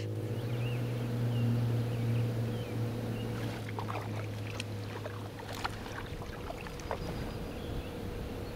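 Bixpy K-1 electric outboard motor pushing an inflatable paddleboard, running with a steady low hum over the swish of water along the hull.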